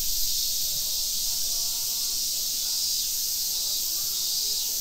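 Chorus of Japanese cicadas (semi) calling continuously: a steady, high-pitched shrill hiss with no pauses.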